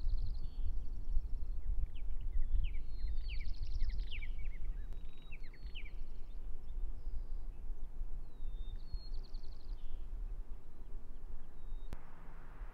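Small songbirds singing: a short whistled phrase ending in a buzzy trill, repeated about every four seconds, with another bird's quick descending notes in between, over a steady low rumble. A single sharp click near the end.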